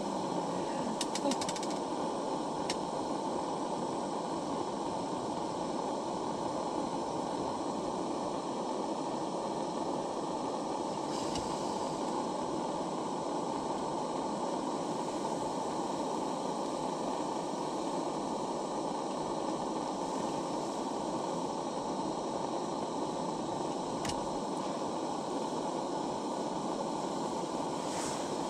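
A steady rushing noise throughout, with a few faint clicks scattered through it.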